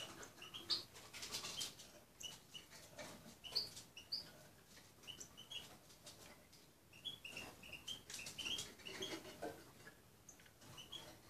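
Small songbirds chirping in short high notes, scattered through in loose bouts, mixed with faint clicks and taps.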